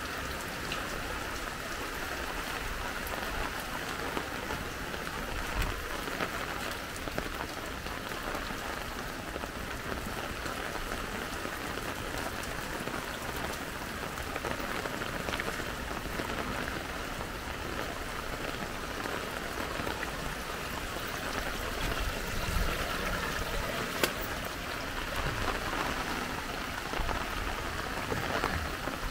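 Steady rain falling: an even hiss, with a couple of faint knocks.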